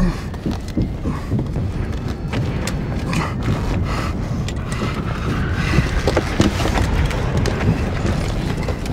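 Video game sound: a steady low rumble with scattered short knocks and clicks.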